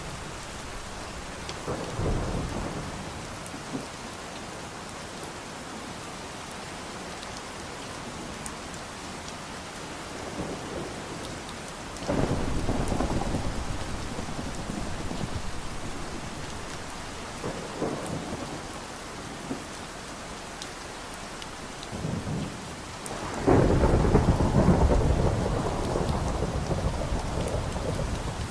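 Steady rain with thunder rolling several times, the loudest and longest roll near the end.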